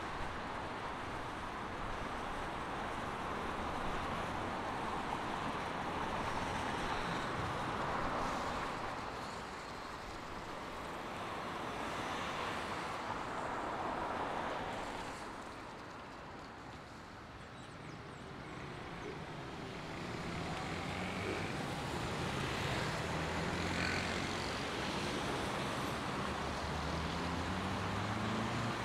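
Road traffic passing on a wet avenue: tyres hissing on the wet asphalt, swelling and fading as each car goes by. In the last third an engine gains revs, rising in pitch, as a city bus pulls across the junction.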